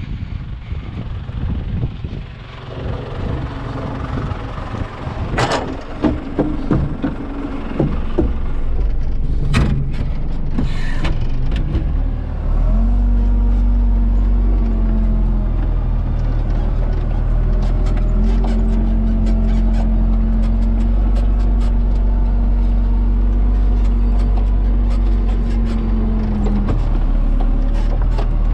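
John Deere 3200 telehandler's diesel engine running, heard from inside the cab, with a few sharp knocks and clatter in the first dozen seconds. About twelve seconds in, the engine picks up to a louder, steady drone with a steady whine over it as the machine drives on.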